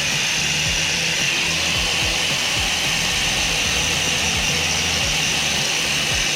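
Angle grinder with a wire brush wheel running steadily, scouring rust and dirt off a wheel bearing mounting plate. Music with a regular bass-drum beat plays underneath.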